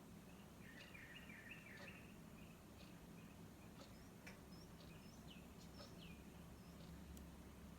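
Faint birds chirping: a quick run of twittering notes about a second in, then scattered short, high chirps that sweep downward.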